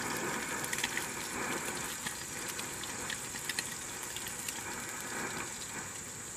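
MSR liquid-fuel camp stove running loudly, with hot oil sizzling and crackling in a small frying pan of fish held over it. The stove is slowly running low on fuel.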